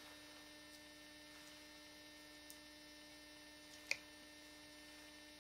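Near silence with a faint, steady electrical hum; a single light click about four seconds in.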